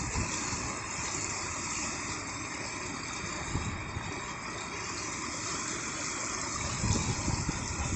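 Floodwater rushing and churning across a submerged road, a steady rush of water with waves breaking into foam. A few low rumbles come in near the end.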